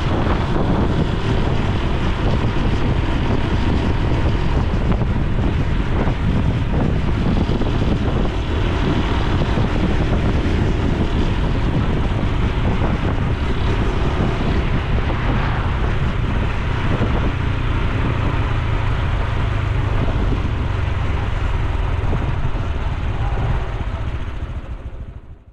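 Honda Super Cub C125's single-cylinder engine and exhaust running on the move, with wind buffeting the microphone. It fades out near the end.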